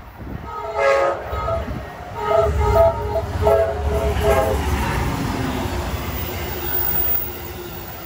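An Amtrak GE P42DC diesel locomotive's multi-chime air horn sounds about half a dozen short, rhythmic blasts in quick succession, as a horn show. Then comes the low diesel rumble and rolling-stock noise of the passenger train passing close by, which eases off near the end.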